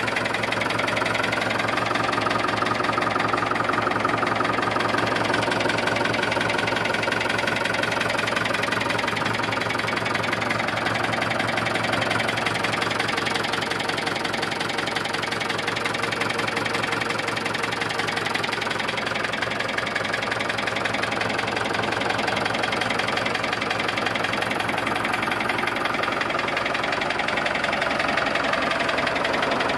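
Diesel engine of a 1977 SAME Saturno 80 4WD tractor idling steadily, with an even, fast knocking beat.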